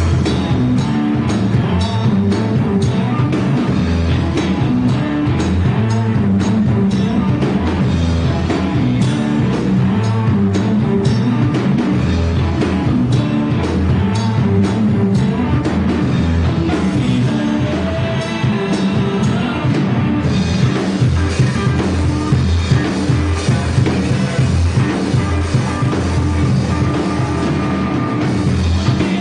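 Live rock band playing at full volume: drum kit, electric guitar and bass guitar, with a male singer on vocals.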